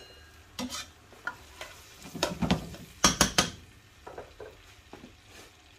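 A utensil stirring onions and garlic frying in olive oil in a pan, with scattered knocks and scrapes against the pan, the loudest cluster about three seconds in, over a faint sizzle.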